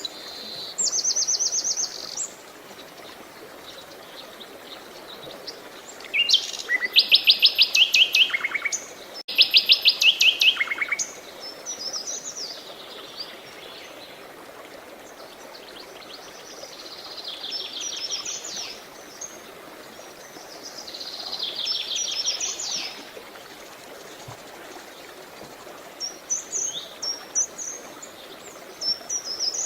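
Songbirds singing in a series of rapid trilled phrases and short chirps, the loudest trills about six to eleven seconds in, over a steady rush of running water.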